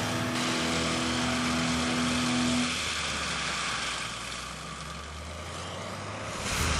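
Heavy machinery running: a steady engine and mechanical whir that dips for a couple of seconds past the middle and rises again near the end.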